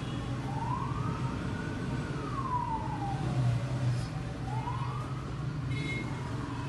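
A siren wailing in slow rising and falling sweeps, about one sweep every four seconds, over a steady low hum, with a short high beep near the end.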